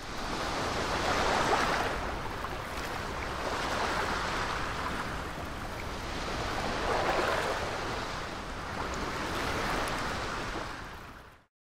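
Small waves washing up a sandy beach, the surf swelling and easing about every two to three seconds, then fading out near the end.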